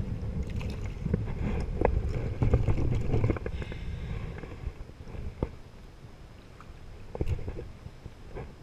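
Wind rumbling on the microphone and choppy water lapping against a kayak, with scattered light knocks and splashes from handling at the water's surface. The wind eases about halfway through.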